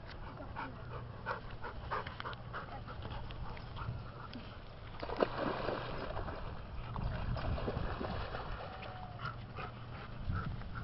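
Dogs panting in quick short breaths, then water splashing as a large black dog wades into a lake, about five seconds in.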